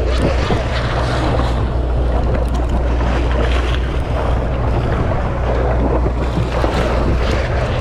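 Boat engine droning steadily, with wind buffeting the microphone and the sea washing against the hull.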